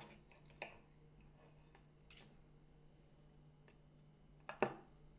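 Steel knife and fork cutting a steak on a ceramic plate: a few faint, scattered clicks and a short scrape, with one sharper click near the end.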